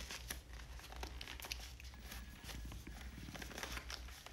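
Faint rustling and crinkling of a soft camera case being opened and handled, with scattered small clicks and scrapes as the camera is worked out of it.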